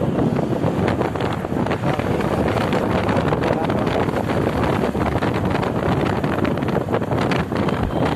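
Wind buffeting the microphone on a moving motorcycle: a steady, loud rumbling rush of air and road noise.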